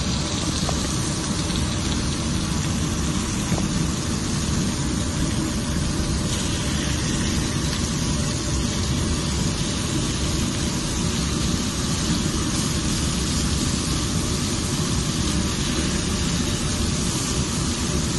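Marinated chicken breasts sizzling on a flat-top griddle, an even hiss over a steady low rumble that does not let up.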